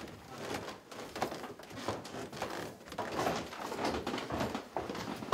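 Footsteps of several people walking on the wooden floor and stairs of an old house, an irregular run of footfalls and scuffs.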